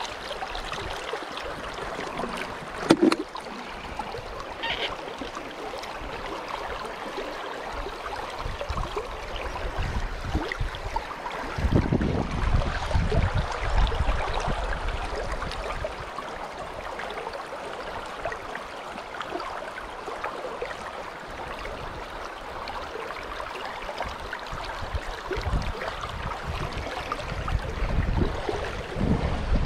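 River current rushing steadily, with low rumbles of wind on the microphone at times and one sharp click about three seconds in.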